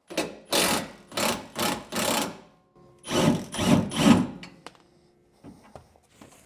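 Milwaukee Fuel cordless impact wrench hammering on the lower rear shock-mount nut, loosening it in short trigger bursts: about five in the first two seconds, then three more a second later.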